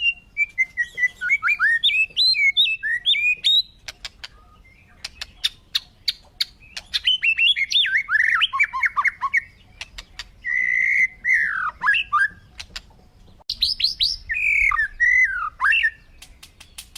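Bird calls: four bouts of quick, sliding chirps separated by short pauses, with sharp clicks scattered among them.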